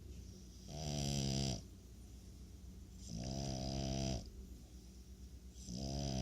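French bulldog snoring, three long snores about two and a half seconds apart, each a low pitched tone with a hiss over it.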